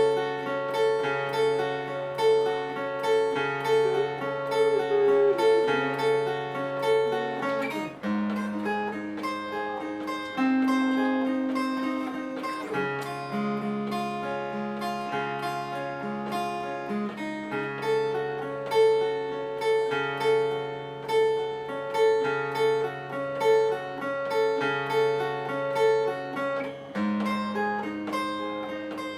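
Steel-string acoustic guitar, a copy of a Taylor 314ce tuned down a half step, playing an arpeggiated passage: single notes picked one after another over a bass note that changes every couple of seconds, all left to ring.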